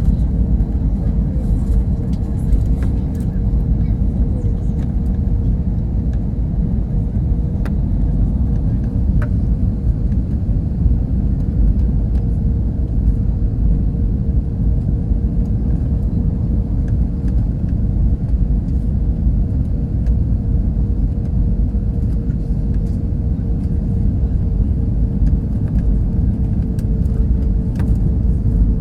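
Airbus A320 cabin noise: a steady low rumble of engines and airflow, with a steady mid-pitched hum over it.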